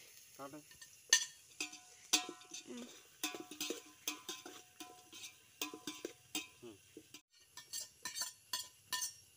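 A knife scraping and tapping chopped vegetables off a plate into a metal cooking pot, with a utensil stirring and clinking against the pot. There are many short sharp clinks, some ringing briefly.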